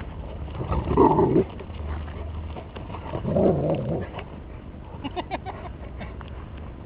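A dog vocalising: two short, rough sounds, about a second in and about three and a half seconds in.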